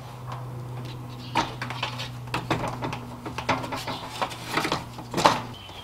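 Radiator fan assembly knocking and clicking against the radiator as it is worked down so its bottom tabs seat in their slots: scattered light clicks, with louder knocks about a second in and near the end, over a steady low hum that stops near the end.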